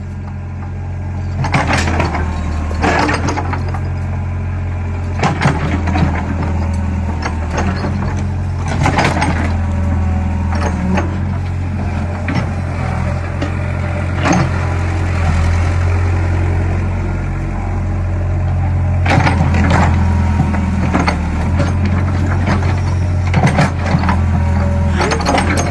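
Excavator's diesel engine running steadily, with knocks and clatters from the machine at irregular intervals.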